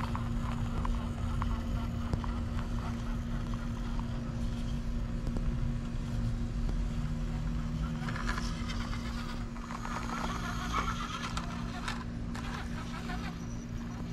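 Axial SCX24 1/24-scale RC crawler working its way over rocks: its small electric motor and gears whirring over a steady low hum, with louder scrabbling stretches about eight and ten seconds in.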